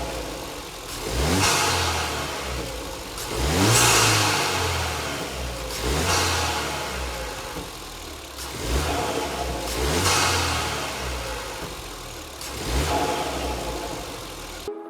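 Ford Fiesta ST's 1.6-litre turbocharged four-cylinder engine, fitted with an ITG cone induction kit, being revved in about six blips from idle, each rising and falling with a loud rushing intake sound at the top.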